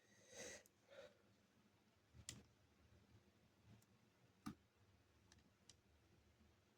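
Near silence broken by a few faint clicks and a brief scrape at the start, with the sharpest clicks a little over two seconds in and again about four and a half seconds in: a small nut and tool being handled as the nut is fitted.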